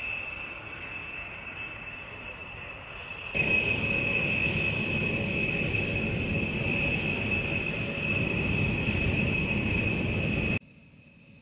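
Turbofan engines of a Rockwell B-1 Lancer bomber running on the ground: a steady high whine over a broad jet rumble. It gets suddenly louder about three seconds in and drops away abruptly near the end.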